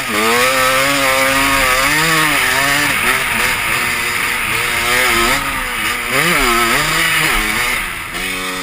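Two-stroke dirt bike engine revving, its pitch rising and falling repeatedly as the throttle is worked. There are quick blips about six seconds in, and it eases off near the end.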